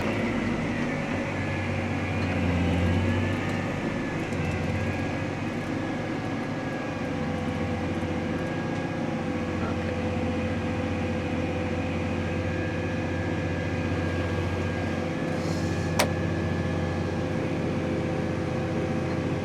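Steady drone of a John Deere 8345RT tractor heard from inside its cab while it pulls a grain cart, with a low hum and held tones throughout. A single sharp click comes near the end.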